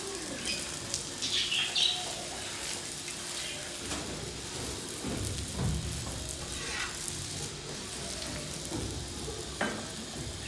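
Radish-stuffed paratha frying in ghee on a flat tawa, a steady sizzle, with occasional scrapes and taps of a metal spatula pressing it against the pan.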